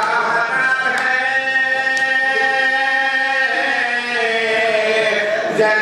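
A man's voice chanting a noha, a Shia mourning lament, in long held notes.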